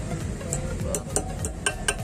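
Light metallic clinks and taps of hand tools on metal motorcycle parts, irregular, a few each second, during the fitting of a swingarm bushing, over a steady low hum.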